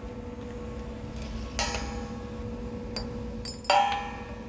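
Steel clamping hardware, a strap clamp and serrated step block, clanking against a machine's T-slotted table: two sharp metallic clanks with brief ringing, about one and a half and three and a half seconds in, with lighter clicks between. A steady hum sits underneath.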